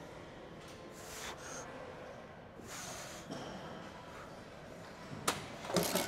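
A woman breathing out hard in short gusts a second or two apart while working through a set of low cable rows, with a sharp clack about five seconds in.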